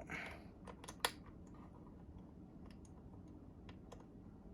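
A few small plastic clicks and ticks of a cable connector being handled and pushed onto a motherboard's RGB header pin connector, the loudest about a second in.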